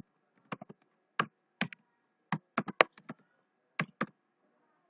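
Typing on a computer keyboard: about ten separate keystrokes at an uneven pace, some quick runs and some pauses.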